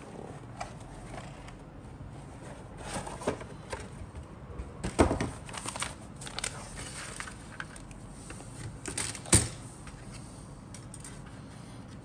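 A plastic model kit being unpacked by hand: the paper instruction sheet and plastic-bagged sprues rustle and crackle against the cardboard box. There are two sharper knocks, about five seconds in and again a few seconds later.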